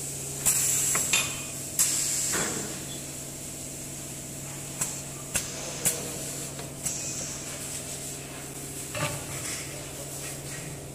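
Pneumatic cylinders of a single-head PVC window welding machine working as the pressing plate and clamps close on the profile: bursts of air hiss about half a second and two seconds in, then a few sharp clicks around five to six seconds in, over a steady low hum.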